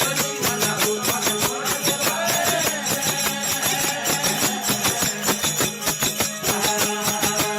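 Instrumental passage of a Rajasthani desi bhajan: jingling percussion keeps a quick, steady beat over a steady drone, with a melody line played over it.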